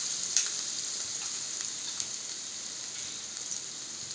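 Crushed garlic sizzling in hot oil in a steel pan on low heat, at the start of sautéing it until light brown. A steady hiss with a few sharp pops, one about half a second in and one about two seconds in.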